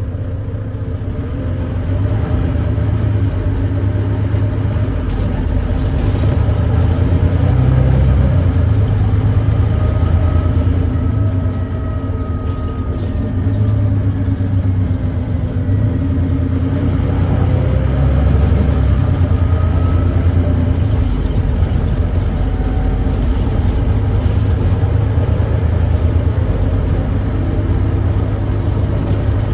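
Volvo D9B 9.3-litre diesel engine of a Volvo B9TL double-decker bus running under way through its ZF Ecolife six-speed automatic gearbox, its note rising and falling several times as the bus pulls and eases off. The engine has an exhaust leak.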